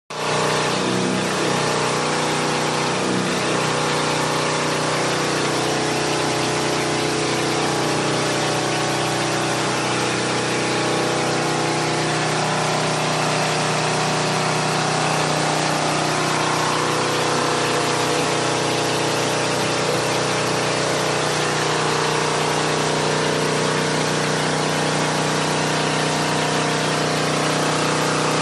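Hot water pressure washer running steadily on test: engine and pump turning at a constant speed, with a dense, even hiss over them.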